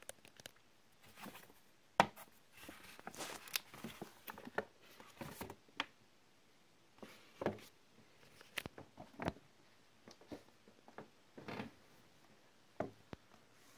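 Paper shopping bag rustling and crinkling as a cardboard watch box is lifted out of it and handled, with scattered light taps and knocks; the loudest is a sharp knock about two seconds in.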